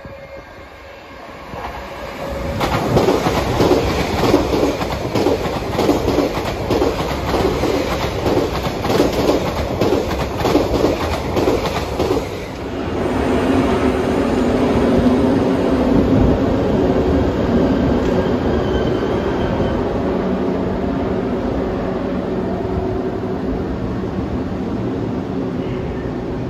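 Trains passing on the main line: rhythmic wheel clatter, about two beats a second, for around ten seconds. Then a steadier hum and wheel noise as a pair of Freightliner Class 90 electric locomotives run by.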